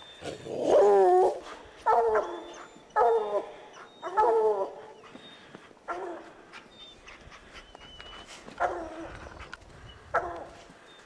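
A hound baying at a treed mountain lion: about seven drawn-out bays at uneven intervals, each falling in pitch, the first the longest and loudest.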